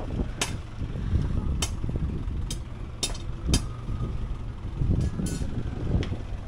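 About six sharp, irregular knocks with a slight metallic ring from work on plywood concrete formwork, over a low rumble of wind on the microphone.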